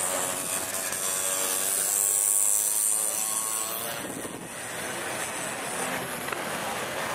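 Small classic motorcycle engine passing close by: the engine note swells to its loudest about two seconds in and fades about four seconds in, then another engine draws near toward the end.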